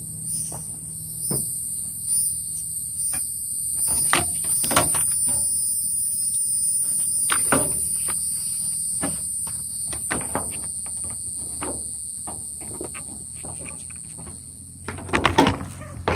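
A steady high-pitched insect chorus, like crickets, pulsing throughout, with scattered clicks and knocks of handling, and a louder clatter of knocks near the end.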